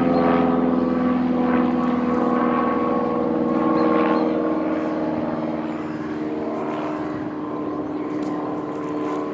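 An engine droning steadily, its several tones sinking slowly in pitch.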